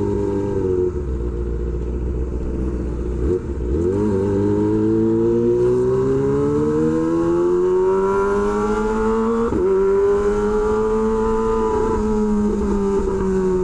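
Kawasaki Ninja ZX-25R's 250 cc inline-four engine running through an SC Project H2 exhaust while riding. The engine note climbs steadily in pitch after a quick dip about three and a half seconds in, typical of an upshift, then dips again near ten seconds and holds nearly steady.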